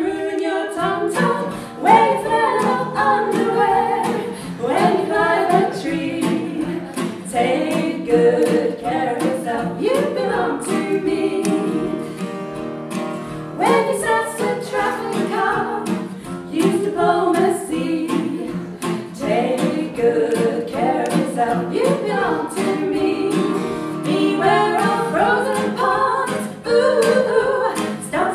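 Two women singing together with acoustic guitar accompaniment.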